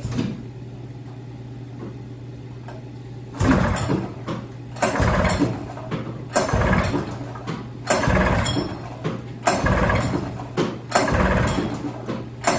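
Polaris Supersport 440 two-stroke snowmobile engine being pull-started by its recoil rope: about six hard pulls roughly a second and a half apart, each a short burst as the engine turns over, on a hand-choked first start after five years of sitting. It does not keep running between pulls, and a steady low hum runs underneath.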